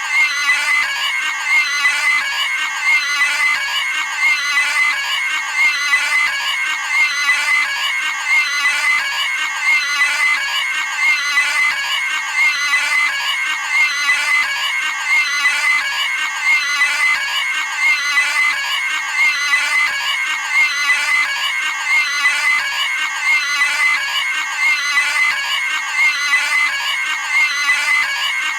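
Cartoon pig screaming sound effect looped over and over: a shrill, high-pitched squeal repeating about every second and a half.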